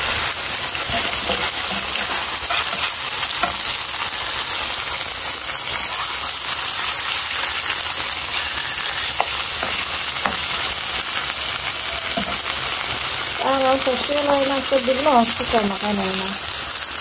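Hot oil sizzling steadily as beef hamburger patties fry in a pan, with a pot of potato chips deep-frying beside it.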